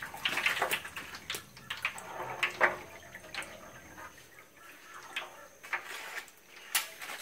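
Tortillas deep-frying in hot oil, with a faint steady sizzle and scattered crackles and pops, plus light clicks of a plastic spatula against the aluminium fry basket and pan.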